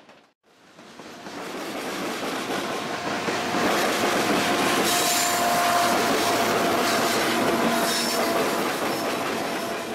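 Freight cars rolling past close by: steel wheels clattering over the rail joints, with a thin, steady wheel squeal through the middle. The sound cuts out briefly about half a second in, then builds up again.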